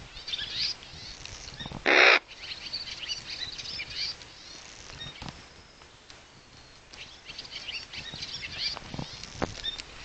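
Small birds chirping and twittering, with one short, loud harsh sound about two seconds in and a few light taps.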